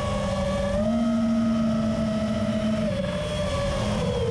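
FPV racing quadcopter's brushless motors whining over a rush of wind, the pitch stepping up and down a little as the throttle changes.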